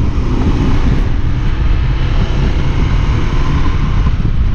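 Motorcycle riding at speed on a wet road: a steady rush of wind and road noise with the engine running underneath.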